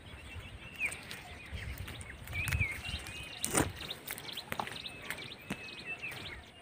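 Small birds chirping with short, curving calls over rustling leafy branches, broken by a few sharp clicks or snaps, the loudest about three and a half seconds in, as the bush is handled to pick its berries.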